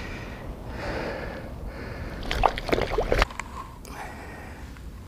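Water splashing and wet rustling as a just-landed carp is handled and thrashes, with a burst of splashing about two and a half seconds in.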